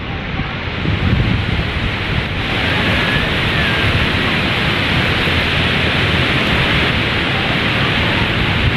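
Sea surf breaking on the beach, a steady rushing hiss, mixed with gusty wind buffeting the phone's microphone. The hiss of the waves grows fuller about two and a half seconds in.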